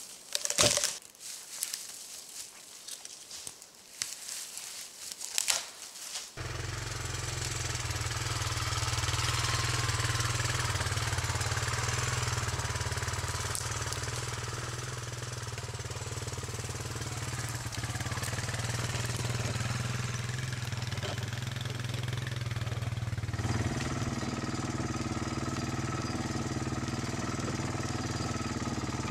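Brush and branches crackling and snapping as a felled, snow-covered tree is dragged off the trail. From about six seconds in, a Honda FourTrax 300 ATV's single-cylinder engine runs steadily as the quad rides along the trail.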